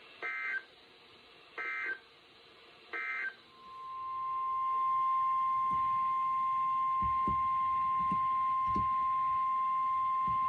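NOAA Weather Radio SAME alert header: three short warbling data bursts about a second and a half apart, followed by the 1050 Hz warning alarm tone, one steady pitch that swells up over about a second and then holds. It is the signal that opens a new warning broadcast, here a flash flood warning.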